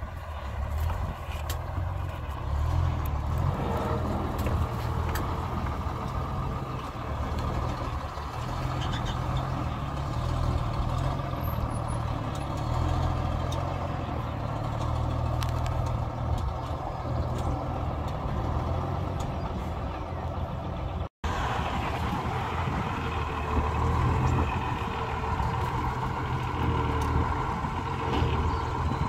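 Large truck engine running steadily: a flatbed rollback truck hauling a Dodge M37, with the sound briefly dropping out at an edit about two-thirds of the way through.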